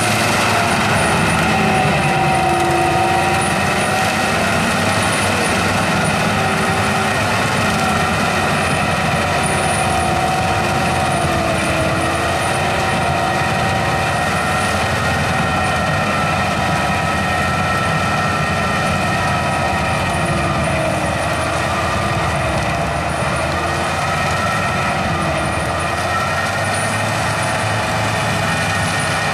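Tractor of over 150 hp pulling a FAE CH-45 strip tiller, its engine and the implement's rotor running steadily under load as it works the soil between cane rows. The pitch wavers slightly up and down.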